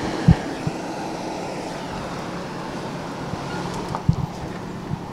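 Toyota sedan rolling slowly past at low speed, its engine and tyres making a steady low rumble. A dull low thump comes just after the start and a weaker one about four seconds in.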